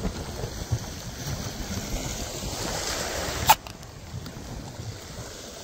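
Wind buffeting the microphone over breaking sea waves, with one sharp click about three and a half seconds in.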